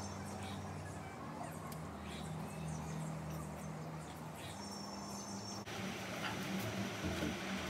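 Outdoor background sound: faint high chirps over a low steady hum. About five and a half seconds in it cuts abruptly to a different, indoor-sounding background with a few light ticks.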